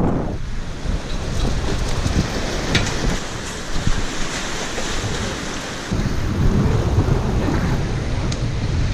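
Wind buffeting the action camera's microphone over the wash of surf, a steady rumbling rush of noise that shifts suddenly about six seconds in.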